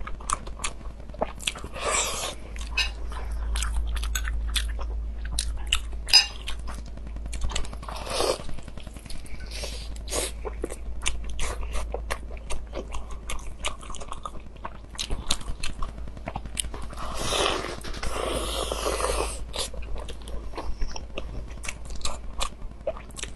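Close-miked eating sounds: a person biting and chewing food, with many small crunches and wet mouth clicks, and a few longer, louder stretches of noise, the longest about three-quarters of the way through.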